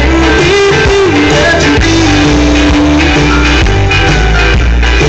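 Live rock band playing loud through a PA sound system: drums and guitars with a sung melody, one long note held through the middle.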